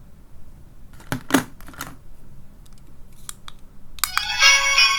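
Plastic clicks and taps of a small capsule toy being handled and its button pressed. About four seconds in, the toy's electronic sound chip starts playing a tinny electronic tune.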